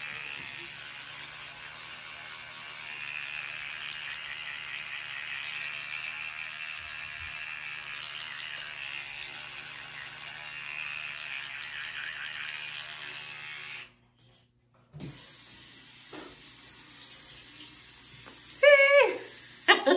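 Electric toothbrush running in the mouth during teeth brushing: a steady buzzing whir with the scrub of the bristles on the teeth. It cuts off suddenly about fourteen seconds in, and short voice sounds follow near the end.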